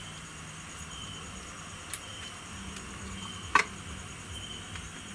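Crickets chirping in short, high pips over a steady hiss, with two sharp clicks, the louder one about three and a half seconds in.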